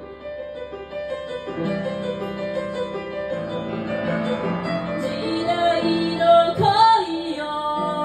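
Live keyboard piano playing held chords in a break between sung lines, with a woman's singing voice briefly rising over it about six and a half seconds in.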